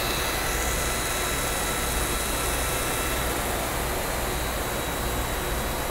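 Park Industries Voyager CNC bridge saw with its arbor running: the stone-cutting blade spins steadily with its cooling water on, a continuous whir with a faint steady high whine.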